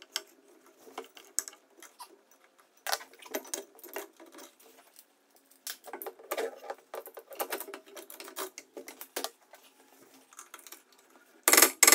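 Scattered light clicks, taps and rattles of small tools and parts being handled during a repair, with a louder, brief clatter near the end.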